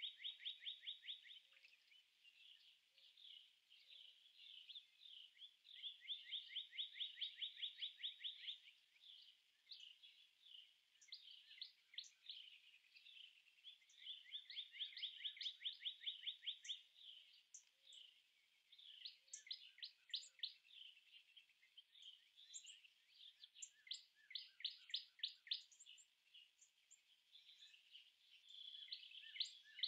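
Faint high chirping trills: fast runs of chirps, each lasting one to three seconds, repeating with short gaps throughout.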